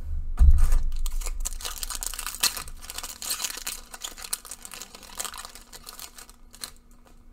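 Foil booster pack wrapper being torn open and crinkled by hand: a dense crackling that thins out toward the end. A dull thump about half a second in.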